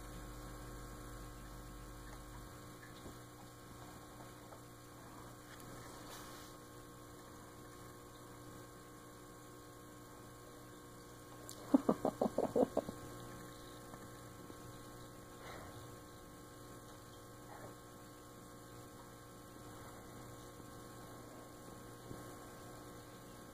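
Steady, faint electrical mains hum. About halfway through comes a brief run of about eight quick clicks from the Great Dane licking the kitten's face.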